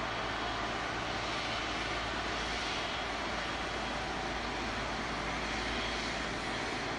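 Jet airliner engines in flight: a steady, unchanging rushing noise with faint steady tones underneath.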